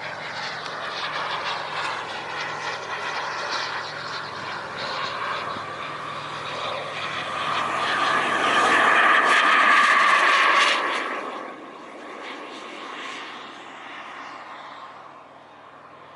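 Engine of a large RC model T-38 Talon jet in flight: a steady rushing whine that swells as the plane passes close, is loudest about nine to ten seconds in, and falls away sharply after about eleven seconds.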